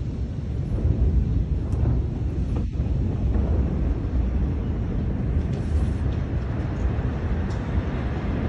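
Steady low rumble from a huge explosion, lingering after the blast. A few faint clicks sound over it.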